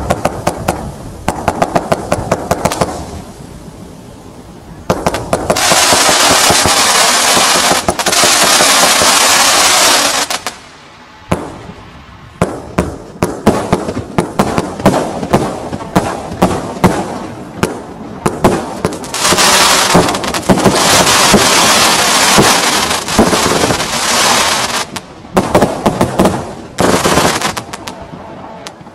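A 92-shot fan-cake firework firing, its tubes launching in quick strings of sharp pops and bangs. About five seconds in, and again near the middle of the second half, the shots run together into several seconds of continuous dense crackling hiss before breaking back into separate pops.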